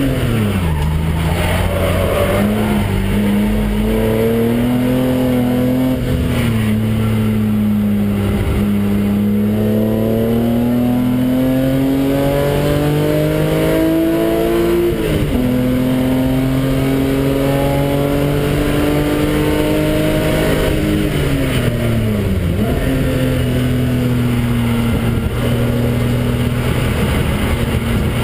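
BMW engine heard from inside the cabin on a track lap, pulling through the gears with its pitch climbing slowly along the straights. The pitch drops sharply just after the start and again about three quarters of the way through, as the car slows and changes down for corners.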